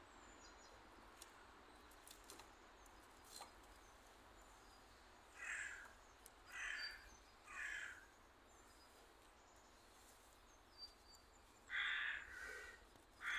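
A crow cawing: three harsh caws about halfway through, then two louder caws near the end, over a faint outdoor background with a few faint clicks before the first caw.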